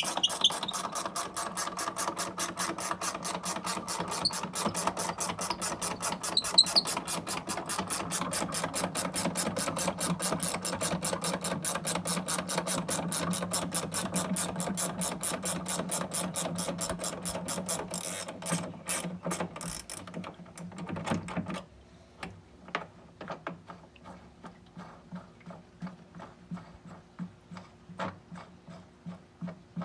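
A 9/16 ratcheting wrench clicking rapidly and evenly, several clicks a second, as it backs out the bolt of a cartridge pool filter's clamp band. About 21 seconds in the clicking turns much fainter and sparser.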